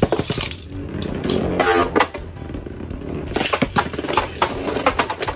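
Two Beyblade Burst spinning tops, Perfect Belial and a Valkyrie, launched into a clear plastic stadium and then whirring across its floor, with many sharp clicks as they clash against each other and the stadium wall.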